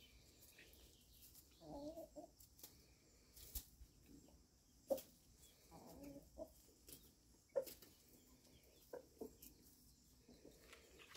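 Chickens clucking faintly in two short spells, about two and six seconds in, with a few sharp clicks between.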